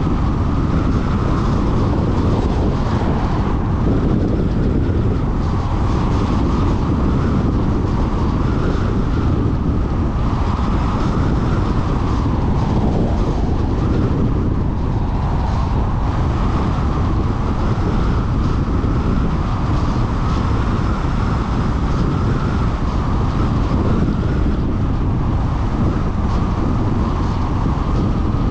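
Car driving steadily along a paved road: a constant rush of tyre and wind noise, heaviest at the low end, with no change through the stretch.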